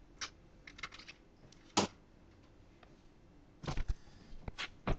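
Scattered light clicks and knocks from objects being handled and set down. The sharpest comes about two seconds in, and a quick cluster follows near the four-second mark.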